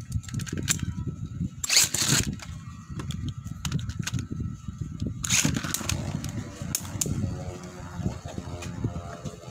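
Two Metal Fight Beyblades, L-Drago Destroy F:D and Diablo Nemesis X:D, are launched into the stadium one after the other. Each launch is a short rasping burst, the first about two seconds in and the second about five seconds in. Then the tops keep spinning on the stadium floor.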